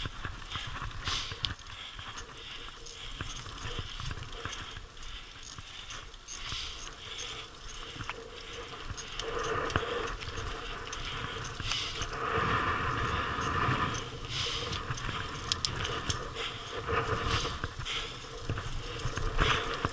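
Mountain bike riding downhill over a loose stony gravel track: tyres crunching over stones and the bike clattering and rattling, with a low rumble of vibration on the helmet-mounted action camera. It gets louder about halfway through.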